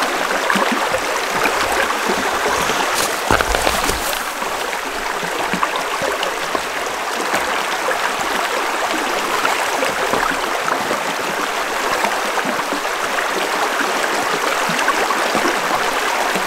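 Shallow rocky creek flowing over stones: a steady, continuous babble of moving water.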